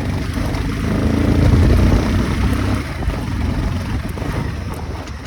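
Motorcycle engine running under load on a rough dirt road. It swells about a second in, then gradually eases off.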